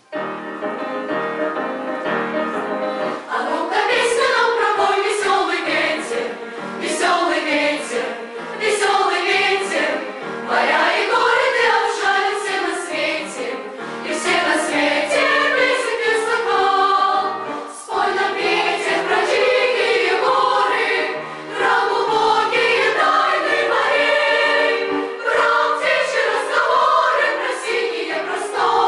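A choir singing a song over an instrumental accompaniment; the accompaniment plays alone for about the first three seconds before the voices come in.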